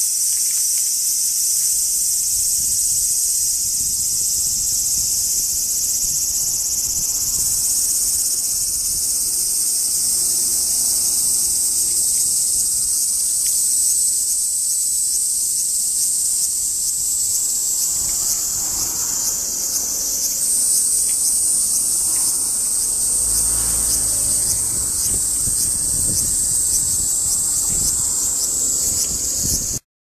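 Large brown cicada (aburazemi, Graptopsaltria nigrofuscata) singing at close range: one continuous high buzz that steps up slightly in pitch twice, with a brief low rumble later on.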